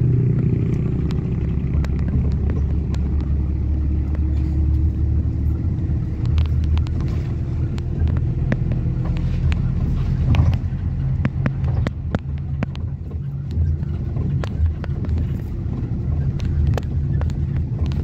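A vehicle's engine droning steadily with road noise, heard from inside the vehicle as it drives, with frequent light clicks and rattles.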